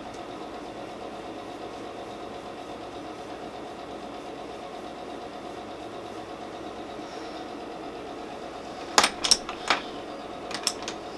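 A steady mechanical hum with a few steady tones in it. About nine seconds in come three sharp knocks, then a few lighter clicks, from the camera being handled and moved.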